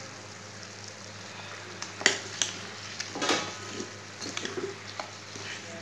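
A metal slotted spoon stirring raw mango pieces and lumps of jaggery in a kadhai, over a faint sizzle of the mixture cooking. The stirring starts about two seconds in, with a few sharp scrapes and clinks of the spoon against the pan.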